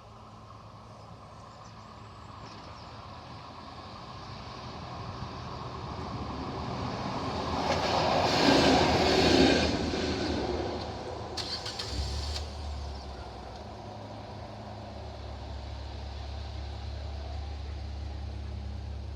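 A vehicle passes, growing louder to a peak about halfway through and then fading, with a few sharp clicks just after. From then on a low, steady engine hum runs.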